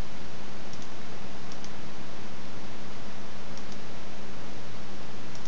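Computer mouse clicking a few times, some clicks in quick pairs, over a steady hiss and low hum.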